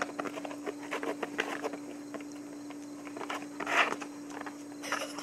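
A dog's paws and claws tapping and scuffling on hard ground as it plays, with a brief louder scuffle a little before four seconds in. A steady hum runs underneath.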